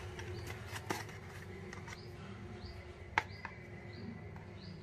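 Handling of a tempered-glass screen protector and its cardboard box: light rustling, a small click about a second in and a sharp tap about three seconds in. Birds chirp faintly in the background.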